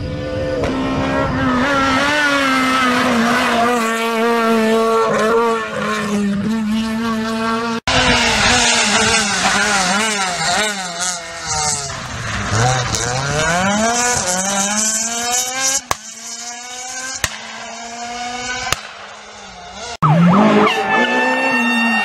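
Renault Clio R3 rally cars' naturally aspirated two-litre four-cylinder engines at high revs on a stage, climbing and dropping in pitch through gear changes and braking. One car passes by about twelve seconds in. The sound cuts abruptly between several separate runs.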